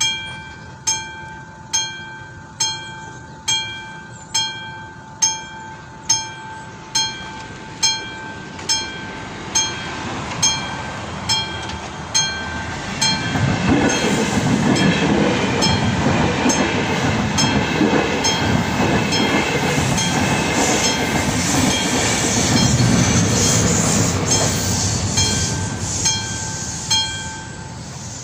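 Classic level-crossing bell on an AŽD 71 warning signal ringing single strokes a little over once a second, the warning that a train is due. About halfway in, a Railjet passenger train passes the crossing for roughly fourteen seconds and all but drowns the bell, which rings on after it has passed.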